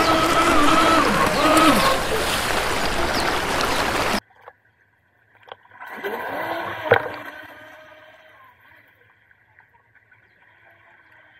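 UDI005 RC speed boat's brushless motor whining over loud wind and water noise. About four seconds in the sound cuts off abruptly; the whine then returns fainter, rising and falling once with a sharp click, and fades away.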